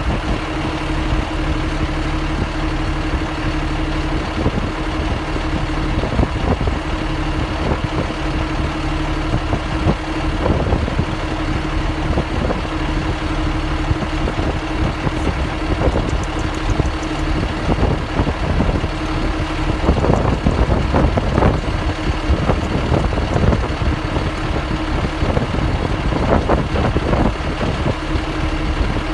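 A vehicle engine idling steadily with a constant low hum, heard from inside the cab.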